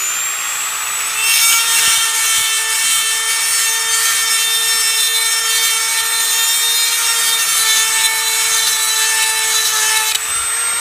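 Dremel rotary tool running with a steady high whine while its grinding stone bit sharpens a Stihl chainsaw chain tooth, stone on metal. The grinding starts about a second in and stops shortly before the end, leaving the motor whining on its own.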